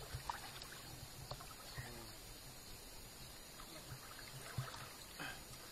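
Faint splashing and trickling of river water, with several light knocks and clicks scattered through it.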